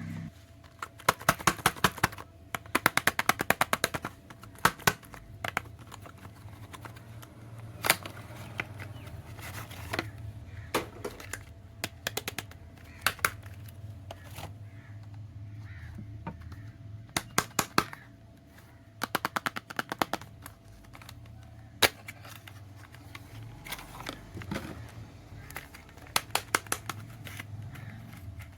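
Soap and its packaging being handled, giving quick runs of sharp clicks and crackles with single louder clicks between them, over a faint steady hum.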